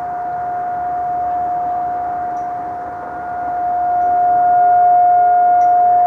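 Distant American Signal STL-10 outdoor warning siren sounding one steady tone for the monthly siren test, swelling and fading in loudness over a few seconds.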